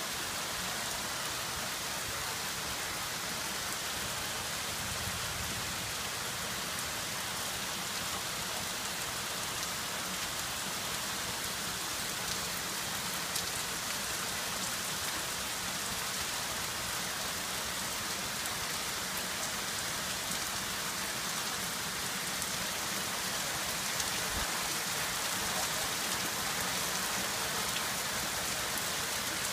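Steady rain falling on a flooded yard, an even hiss of drops on standing water, grass and a wooden deck.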